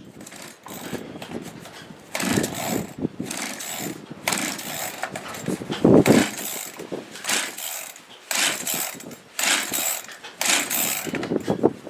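Chainsaw being pull-started, the starter cord yanked about seven times in a row at an irregular pace; the saw does not settle into running.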